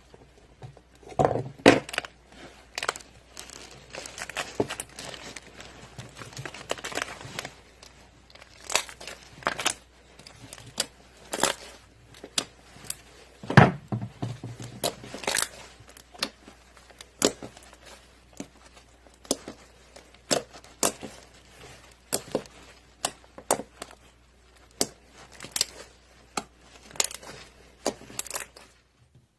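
Slime being squeezed and pressed by hand, making irregular sharp pops and crackles, roughly one or two a second.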